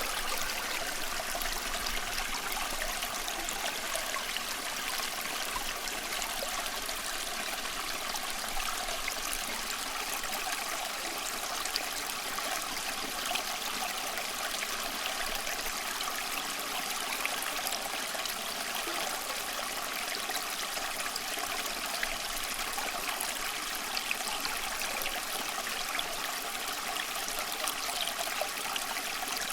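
Small stream flowing steadily: continuous babbling and trickling water with fine splashy detail.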